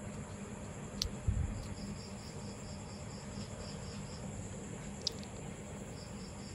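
Faint background insect chirping, an even high-pitched pulse at about four to five chirps a second over a steady high hiss, with two sharp clicks about a second in and about five seconds in.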